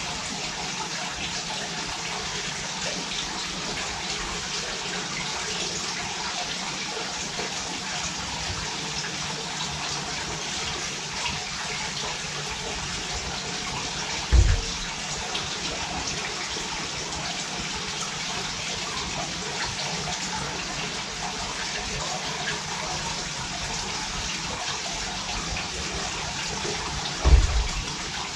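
Steady rushing, water-like noise, with two dull low thumps, one about halfway through and one near the end.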